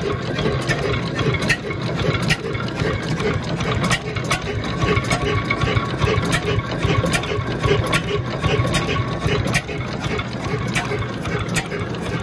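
Hornsby single-cylinder hot-bulb oil engine running steadily. It makes an even, repeating beat with sharp clicks from its valve gear.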